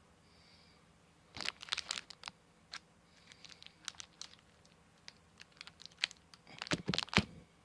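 Handling noise: soft rustles and small sharp clicks as hands turn a freshly waxed tobacco pipe close to the microphone. The noise comes in two short flurries, one about a second and a half in and one near the end.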